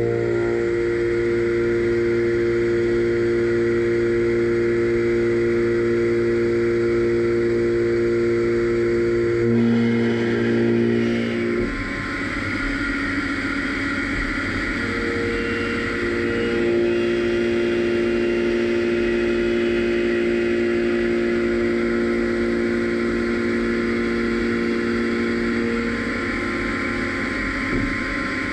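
CNC lathe's driven milling unit running a solid carbide HAIMER chamfer end mill through a spiral groove in X37CrMoV5-1 (1.2343) tool steel. The machine gives a steady whine of several held tones, which shift in pitch about twelve seconds in as a hiss from the cut grows louder.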